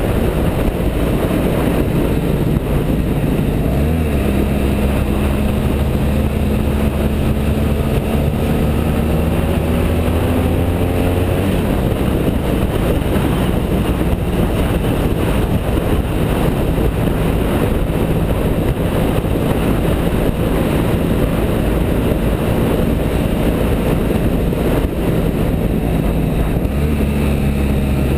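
BMW F650GS motorcycle engine running on the move, under a steady rush of wind on the microphone. The engine note steps up about four seconds in and climbs slowly, drops back about twelve seconds in, and rises again near the end.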